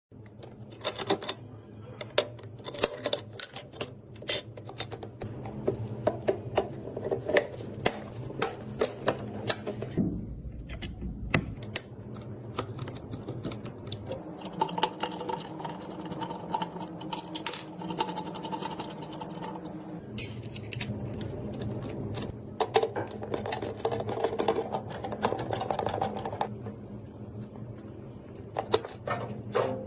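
Irregular sharp clicks and clatter over a steady low hum.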